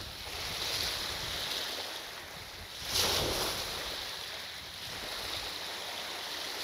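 Small waves washing on the shore, swelling and easing, with one louder wash about three seconds in.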